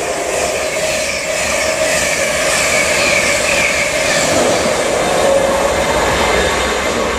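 LNER InterCity 225 express, Mk4 coaches with a Class 91 electric locomotive, passing at speed: a steady rush of wheels on rail with a wavering whine above it.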